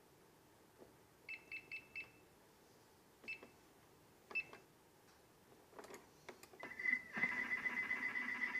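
Thermomix TM31 control panel beeping as the cooking time, temperature and speed are keyed in: a quick run of four short beeps, then two single beeps. A few light clicks follow, and about seven seconds in a steady high tone with a low hum starts and keeps going.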